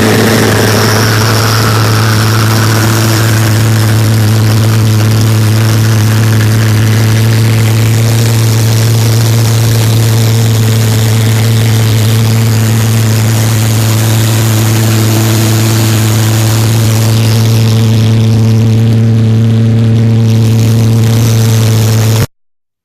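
Valved pulse jet made from a Lennox Pulse furnace combustion chamber, running on gas: a loud, steady low buzz with a constant pitch that cuts off suddenly near the end. The owner thinks its combustion sits a little too close to the intake.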